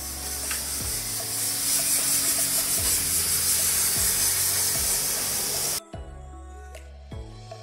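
Pressurized water jet hissing as it sprays the cooling coil fins of an air handling unit, washing out trapped dust; the spray cuts off suddenly about six seconds in. Background music with a steady beat plays underneath.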